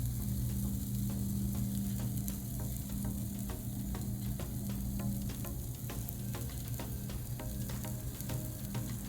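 Giant egg omelette frying on a Blackstone griddle: a steady sizzle with frequent small crackling pops, over a steady low hum.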